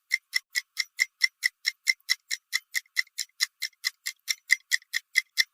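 A fast, evenly spaced ticking sound effect, about four and a half sharp ticks a second, keeping a steady beat until it stops just before the end.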